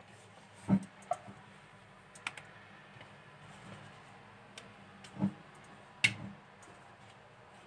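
A spatula scraping cream out of a stainless steel mixing bowl, giving a handful of separate light clicks and knocks against the metal.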